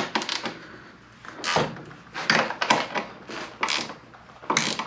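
Combination wrench working a bolt on a snowblower's steel frame: a series of short metallic clicks and scrapes, about seven strokes at uneven intervals.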